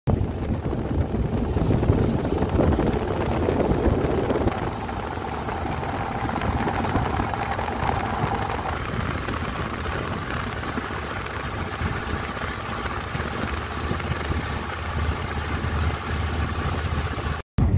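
Fishing boat's engine running steadily while the boat is underway, with water rushing past the hull.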